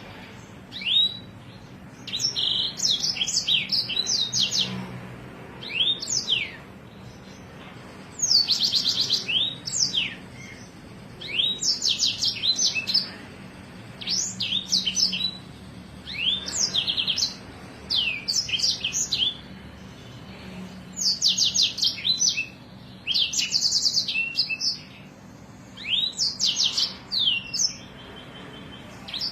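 A songbird singing in short, repeated bouts of fast, high trills and sharp rising and falling whistled notes, with brief pauses between bouts: the rolling ('ngeroll') and piercing ('nembak') song styles used in masteran recordings to tutor caged songbirds.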